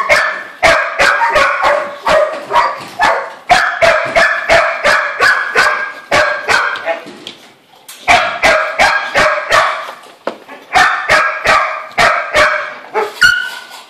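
A dog barking rapidly and loudly, about three barks a second, in three runs broken by two short pauses.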